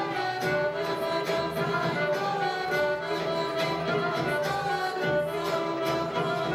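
Traditional folk dance music for dances from the Pčinja region of southern Serbia, a melody of held notes playing continuously at a steady level.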